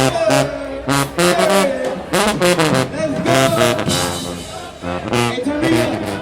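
Marching band playing: brass horns over a steady drum beat.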